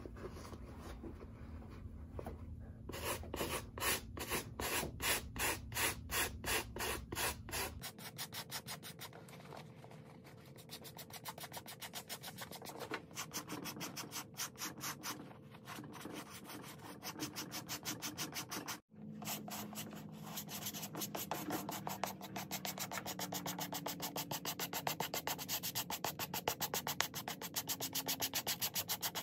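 Stiff-bristled suede brush scrubbed back and forth over suede leather in quick, scratchy strokes: about two a second at first, then quicker and closer together. This is dry brushing that lifts dirt and raises the nap.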